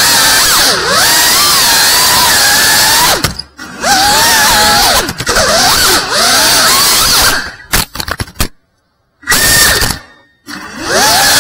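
FPV quadcopter's brushless motors and propellers whining at high revs, the pitch rising and falling constantly with the throttle. The sound cuts out abruptly several times in the second half.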